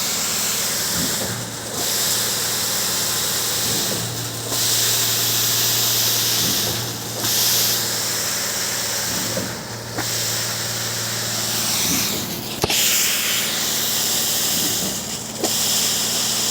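Concrete pump pushing ready-mix concrete through a long pipeline: a steady engine hum under a loud hiss that dips and comes back about every three seconds, once per pump stroke, with one sharp knock partway through.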